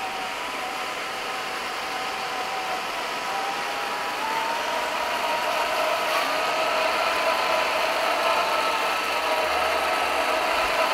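Electric motors and gear drives of two 1/10-scale RC crawlers, a Traxxas TRX-4 and an Axial SCX10 II, whining steadily as they drive slowly along a wooden bridge deck. The whine rises a little in pitch and gets louder about halfway through as they come closer.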